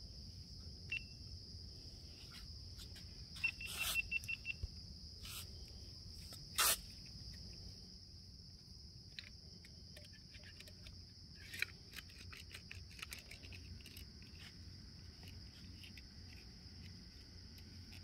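Steady high-pitched drone of forest insects, with scattered short chirps and clicks over it. A rapid run of short chirps comes about four seconds in, and a short loud sound stands out about a third of the way through.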